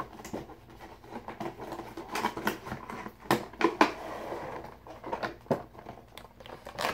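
Plastic and cardboard packaging being handled and pulled apart: irregular crinkling and rustling with a run of sharp crackles, loudest a little past the middle, as a statue is slid out of its box in a clear plastic bag.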